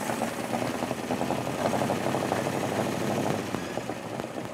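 Ford V8 inboard engine of a 1950 Chris-Craft-style runabout running under way, its exhaust firing in a fast, even beat that gets quieter near the end.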